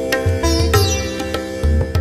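Indian classical instrumental raga music: sharply plucked string notes ringing out over a steady held drone, with deep low strokes underneath.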